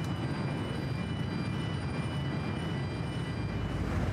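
Steady low mechanical rumble of a car ferry, heard from inside its vehicle deck. Shortly before the end it changes to wind buffeting the microphone on the open deck, with the ship's rumble beneath.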